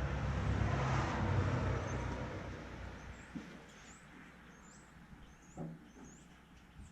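A motor vehicle passing, a low rumble that swells and then fades away over the first three seconds. After it come scattered bird chirps and a few light knocks.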